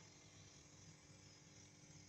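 Near silence: faint steady low hum and hiss of room tone.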